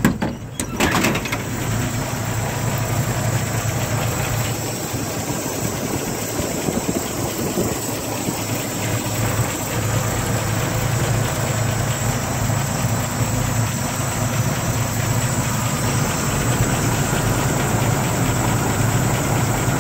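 A 1949 American LaFrance 700 series fire truck engine idling steadily. A few sharp knocks sound in the first second.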